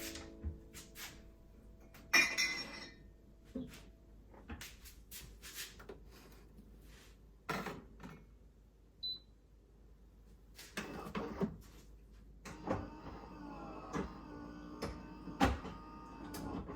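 Quiet household handling sounds: scattered light knocks and clicks, like cupboard doors and things being set down, with a short rustling burst about two seconds in and a faint steady tone under the knocks in the last few seconds.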